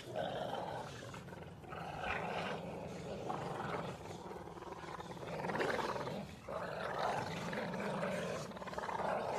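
A dog growling in a series of rough bursts, each about a second long.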